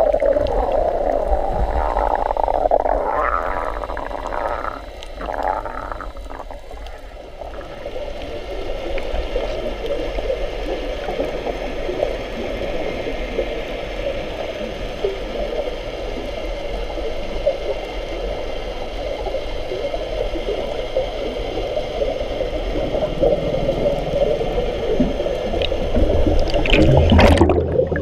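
Muffled rushing and gurgling of water picked up by a camera held underwater, with a louder burst of bubbling about 27 seconds in.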